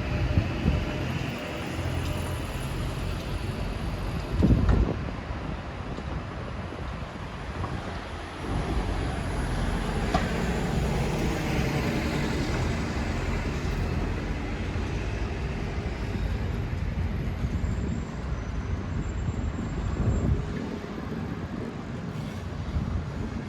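City street ambience of road traffic passing steadily, with a short, loud, low thud about four and a half seconds in.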